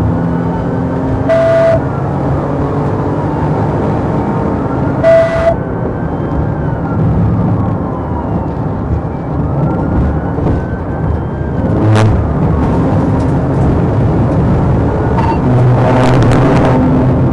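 Police cruiser in pursuit at highway speed: steady engine and road rumble heard from inside the car, with a siren wailing up and down in the background. Two short blasts come about a second and a half and five seconds in.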